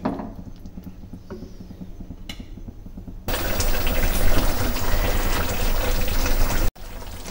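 Creamy kebab gravy bubbling as it cooks in a wok, quieter with a few light spatula stirs at first, then much louder from a little over three seconds in before cutting off suddenly near the end.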